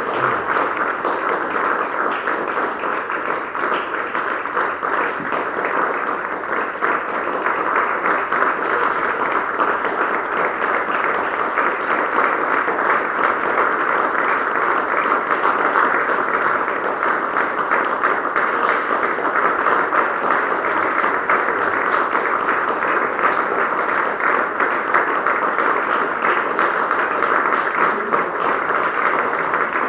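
Audience applauding without a break, many people clapping at once, growing a little louder after several seconds and then holding steady.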